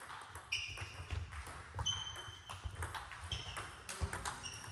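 Table tennis rally: the plastic ball clicking sharply off the bats and the table, several hits ringing briefly, about one stroke every second and a half, with fainter knocks from other tables in the hall.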